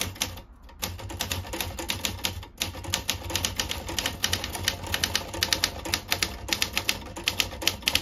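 Everest K2 manual typewriter being typed on at a steady pace: a fast run of type bar strikes, several a second, with brief pauses about half a second and two and a half seconds in.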